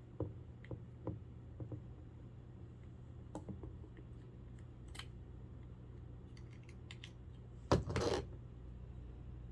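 Scattered light clicks and taps of small parts being handled while a plastic clock radio is taken apart, then a louder knock and a short clatter near the end.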